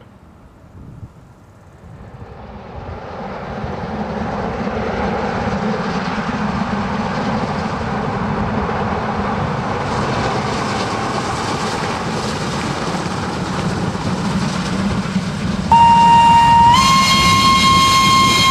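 Steam locomotive 01 202, a German class 01 Pacific, drawing near and running by with its train, the noise of exhaust and wheels growing loud over the first few seconds and then holding steady. Near the end its steam whistle sounds, one loud tone that steps up in pitch after about a second and is still sounding at the close.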